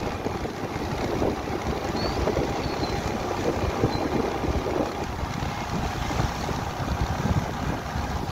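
Wind buffeting the microphone of a moving vehicle: a steady low rumble of wind and road noise.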